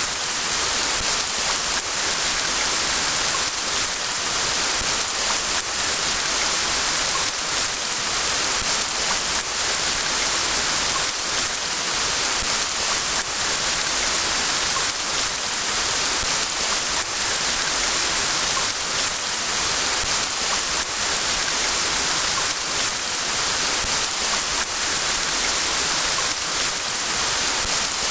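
Steady rain falling in a forest: a dense, even hiss of drops that holds at one level without let-up.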